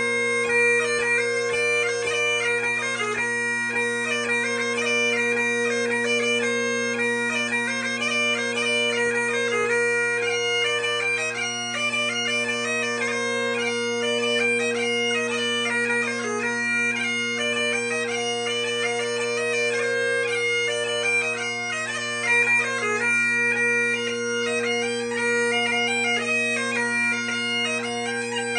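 A set of 3D-printed bagpipes played without a break: its three drones sound a steady, unchanging tone while the chanter plays a melody above them.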